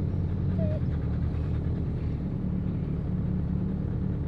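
A 1998 Jeep Wrangler driving off-road in four-wheel drive, heard from inside the cabin: a steady low engine and drivetrain rumble.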